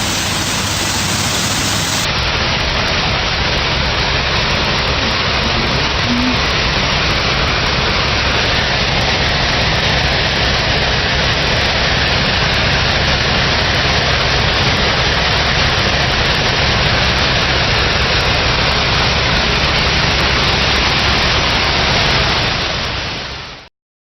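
Heavy machinery running steadily: a loud, even rushing noise with a low hum underneath. It cuts off abruptly near the end.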